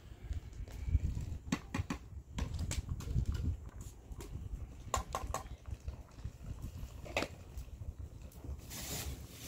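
Scattered clicks and knocks from a pot being stirred on a wood-fired clay stove, a few near the start, one cluster mid-way and one more a little later, over a low, uneven rumble of wind on the microphone.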